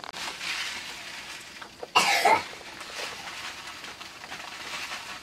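Hot oil in a wok sizzling as ingredients are dropped in, with one loud cough about two seconds in.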